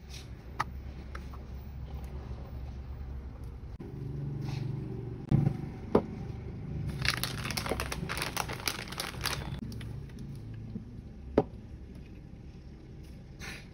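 A plastic packaging bag being handled, crinkling for a couple of seconds in the middle. Three sharp clicks from small plastic items being handled: one near the start, one about six seconds in, one near the end.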